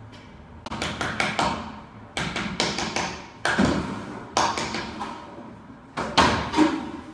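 Hammer blows on a metal rod set on the shaft of a window air-conditioner fan motor clamped in a vise, knocking the motor apart to replace its noisy bearing. Sharp metallic taps come in about five quick runs of several strikes each, with short pauses between.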